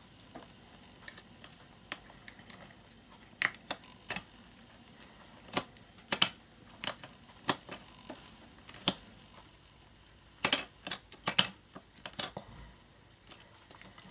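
Plastic clicks and snaps from a string-light battery pack being fitted back together: its small trap door pushed into place and the case pressed by hand. Sharp clicks come scattered, some in quick pairs, with a louder run about ten seconds in.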